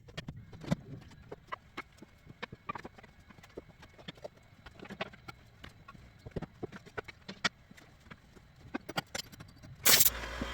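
Irregular hollow knocks and clicks of wooden pieces and tools being handled and set down during a shop clean-up. Near the end comes a loud burst, and a steady machine noise with a low hum begins.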